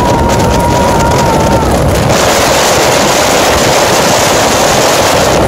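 York gas furnace running after firing up, its blower air rushing loudly and steadily across the microphone. A thin whine sounds at the start and fades out about a second and a half in.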